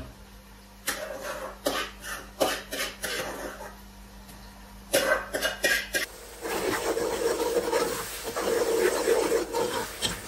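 A spoon scraping blended pepper out of a metal pot into a frying pot, with several separate scrapes and knocks on the metal. About six seconds in, a steady, louder sizzle as the pepper fries with onions in oil and is stirred.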